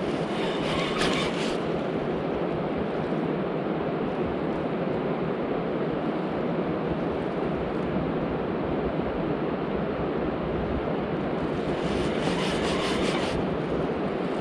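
Steady outdoor rushing noise, even and unbroken, with two brief higher, rattly hisses, one near the start and one about twelve seconds in.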